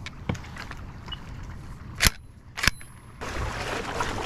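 A few short, sharp knocks and clicks, the two loudest about two seconds in and a little over half a second apart, followed by a steady hiss of wind and water noise.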